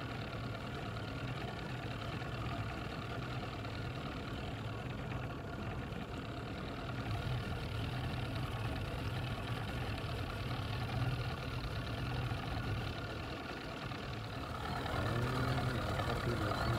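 Boat's outboard motor idling steadily with a low hum.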